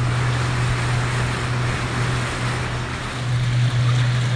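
Shanty boat's engine running steadily under way, a constant low hum, with the wake water rushing and churning past the stern.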